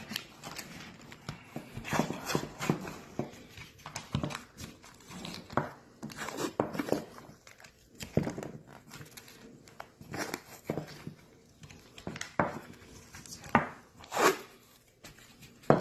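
Blue painter's tape being pulled and torn off the roll and pressed around a cardboard tube: irregular rips and crinkles.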